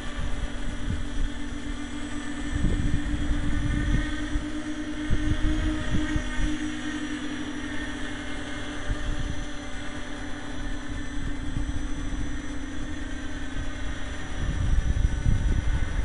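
An RC tricopter's electric motors and propellers buzz with a steady, gently wavering whine as it flies. Wind buffets the microphone in gusts, growing louder near the end, when the steadiest low hum drops out.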